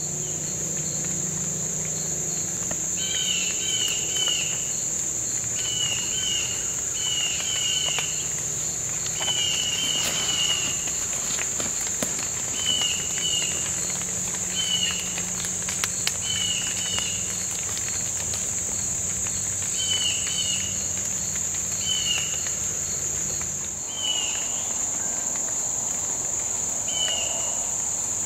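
Steady high-pitched drone of woodland insects, with short, high double chirps repeating every second or two over it.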